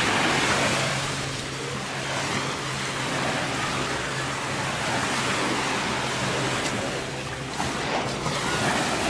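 Gulf surf breaking and washing up the beach, a broad rush that swells and ebbs every few seconds, with wind on the microphone. A steady low hum runs underneath for most of it.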